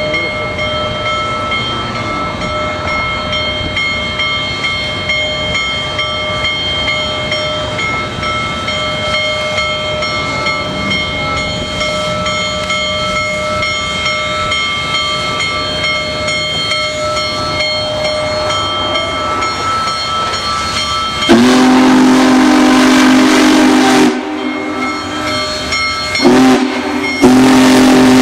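Union Pacific Big Boy No. 4014 steam locomotive rolling slowly past with a steady hiss, then its steam chime whistle blowing a chord of several pitches: a long blast, a short one and another long blast near the end.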